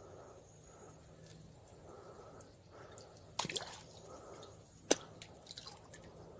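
A few short, sharp clicks over faint background noise: a quick cluster about three and a half seconds in, and a single sharper click about five seconds in, followed by a few fainter ticks.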